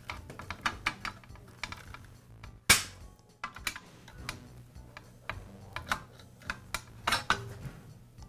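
Irregular small metal clicks and clinks as needle-nose pliers grip and work the steel pivot pin out of a circular saw's frame and base bracket, with one sharp louder click about two and a half seconds in.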